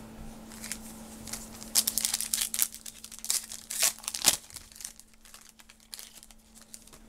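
Trading-card pack wrapper crinkling and tearing as it is ripped open by hand. The crackling is loudest from about two to four and a half seconds in, then dies down to a few light rustles.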